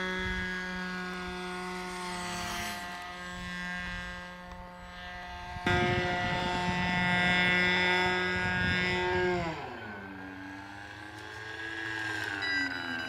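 Radio-control model airplane's glow-fuel engine, running on methanol with nitromethane, holding a steady high pitch and suddenly louder about six seconds in. Near the end the engine throttles back, its pitch dropping, then rising and falling again.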